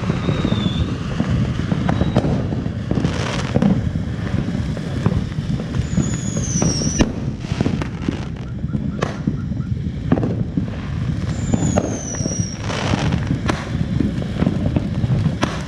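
TNT Twinkle Dust ground fountain firework spraying sparks with a steady crackling hiss and many sharp pops, swelling into louder rushes about three seconds in and again near the end. Two short falling whistles sound over it about six and eleven seconds in.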